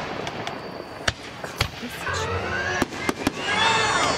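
Aerial fireworks going off: a string of sharp bangs and cracks at irregular intervals, about half a dozen, over a continuous rumble of bursts.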